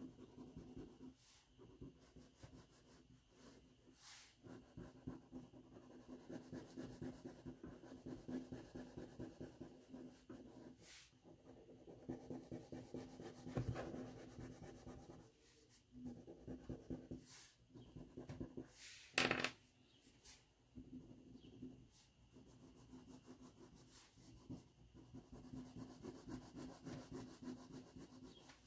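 Crayon rubbed back and forth on drawing paper in quick, faint scribbling strokes, colouring in an area. A few brief taps break in, the sharpest about two-thirds of the way through.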